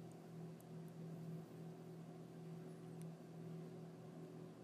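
Faint background noise of the recording: a steady low electrical hum with hiss. A few faint, short clicks sound over it, the second about half a second in and another about three seconds in.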